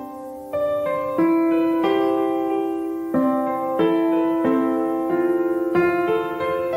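Background piano music: slow, sustained notes and chords on an electric-piano-like keyboard, changing about once a second.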